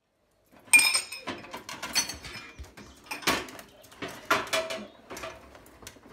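Dishes and cutlery clinking and rattling in a dishwasher rack as a terrier noses through them: a string of irregular clinks and knocks, the first and loudest ringing briefly about a second in.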